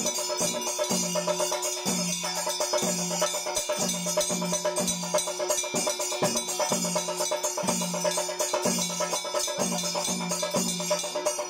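Temple percussion for a puja: a steady drum beat of about two strokes a second under continuous ringing bells and jangling cymbals.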